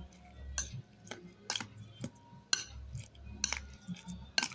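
A metal spoon stirring a wet mixture of grated potato and egg in a glass bowl, clinking against the glass about twice a second.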